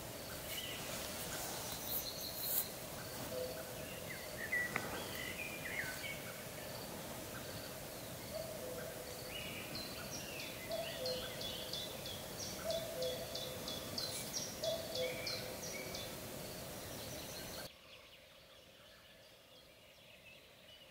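Birds singing in spring woodland. A low two-note call repeats about once a second, under higher chirps and trills from other birds. Near the end it drops to a faint background hush.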